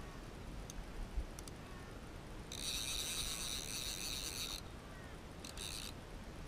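A high, steady insect buzz that starts about two and a half seconds in, lasts about two seconds, and comes back briefly near the end. A few faint light clicks come in the first second and a half.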